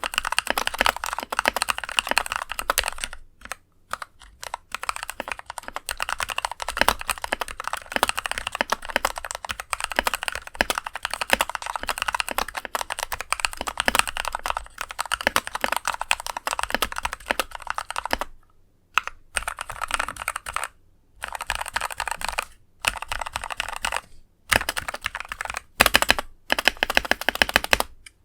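Fast typing on an NK65 mechanical keyboard with Kailh Pro Burgundy linear switches lubed with Krytox 205g0: a dense run of keystroke clacks with a deep thonk and a scratchy edge. It is broken by a few brief pauses, one near the start and several near the end.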